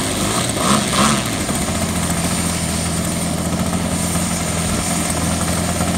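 Gas engine of a large model aerobatic plane (a GP 88) idling steadily on the ground, just after being started.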